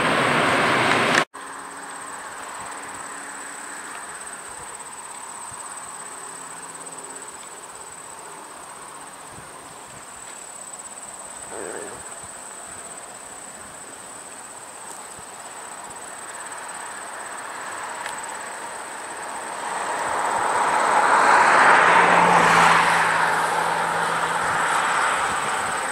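Four-engine Lockheed C-130 Hercules turboprops: loud engine noise that cuts off suddenly about a second in, then the drone of a C-130 on approach, growing steadily louder to a peak about 22 seconds in as it comes closer.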